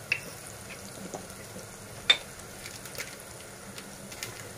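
Oil sizzling gently in a pressure cooker under a base of fried onion, tomato and heaped spice powders. A few sharp taps sound over it, the loudest about two seconds in.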